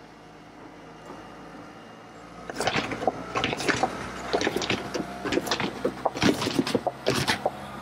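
Small van's engine running at low speed, then a rapid, irregular series of knocks, slaps and scrapes about two and a half seconds in as the van drives over flexible EVA-polymer bollards, bending them flat under its bumper and body.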